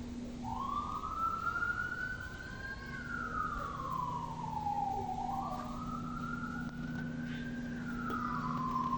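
Emergency vehicle siren wailing in slow sweeps, rising and falling in pitch about twice, over a steady low hum.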